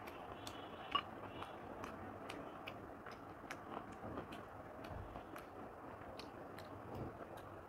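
Soft sounds of a hand mixing rice and dal on a plate, with a sharp ringing clink about a second in. A steady ticking of about two or three ticks a second carries on underneath.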